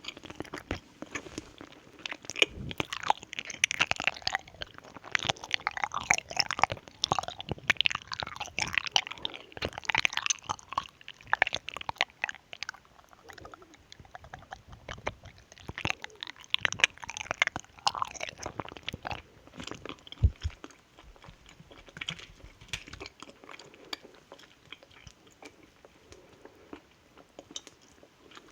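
Close-miked chewing and crunching of sweets, with wet mouth clicks and smacks, busiest in the first half and softer near the end.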